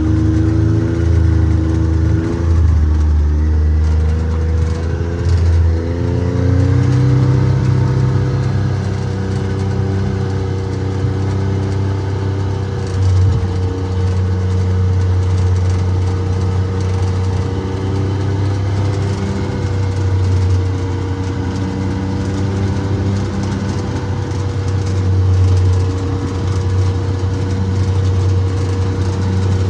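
A vehicle engine running steadily. Its note shifts a few seconds in, as if changing speed or gear, then holds steady.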